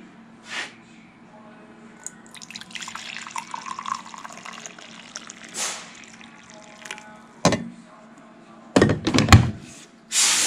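Hot coffee poured from a glass carafe into a ceramic mug, a splashing pour whose pitch rises a little as the mug fills. It is followed by a few sharp knocks near the end as the carafe and mug are set down.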